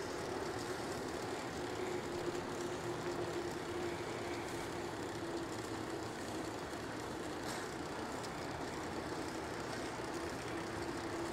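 Steady rush of wind and tyre noise from riding an electric mountain bike along a trail. A faint steady whine runs under it, fading about halfway through and returning near the end.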